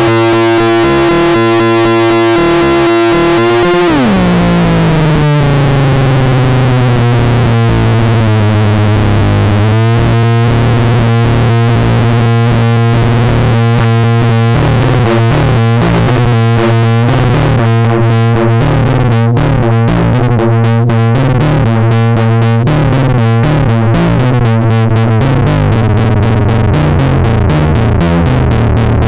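Eurorack modular synthesizer patch through the Nutone's Nutube-based distortion: a distorted triangle-wave drone that glides down in pitch about four seconds in and then holds low. A rhythmic, pulsing sequenced pattern is mixed over it and drops away near the end.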